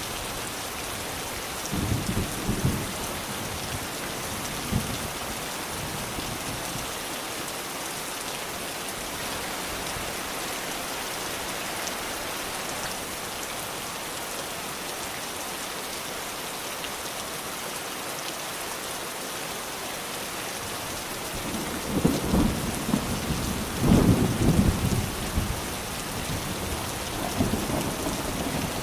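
Steady rain falling, an even hiss, with low rolls of thunder: a short rumble about two seconds in and a longer, louder one about three-quarters of the way through.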